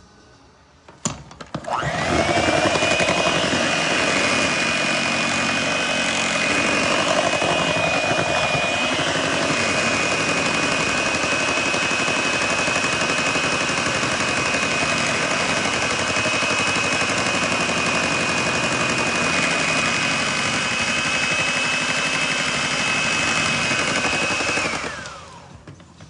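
Electric hand mixer beating cake batter in a metal bowl: a click about a second in, then the motor whines up to a steady high pitch and runs until it winds down near the end.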